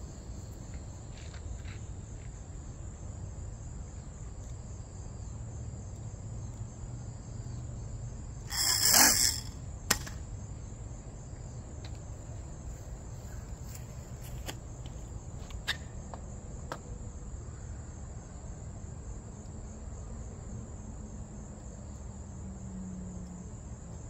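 Crickets chirping steadily in the grass. About eight and a half seconds in, a brief loud rushing burst cuts in, followed by a sharp click about a second later.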